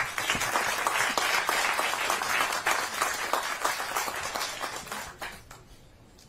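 Seated audience applauding: dense, steady hand-clapping that thins out and dies away about five seconds in.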